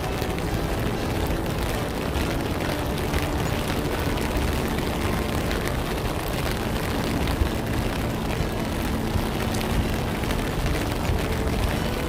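Wind buffeting the microphone: a steady, dense low rumble with a rough hiss over it.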